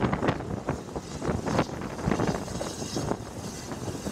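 Train carriage wheels rolling over the rails, heard through an open window: irregular knocks over rail joints above a steady rumble, with wind on the microphone. The knocks space out as the train slows into the platform.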